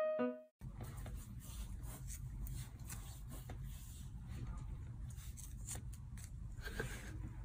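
A short piano phrase ends in the first half-second. After that there is faint room noise with scattered light rubbing and scratching clicks.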